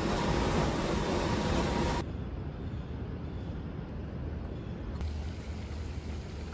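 Steady background noise: a loud hiss for about the first two seconds, then a quieter low rumble of outdoor city ambience with distant traffic.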